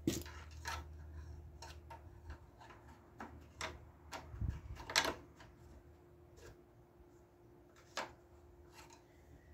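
Light plastic clicks and taps as a push mower's oil-fill cap and dipstick are handled to check the oil level; the sharpest tap comes about five seconds in, another near eight seconds. A faint steady hum runs underneath.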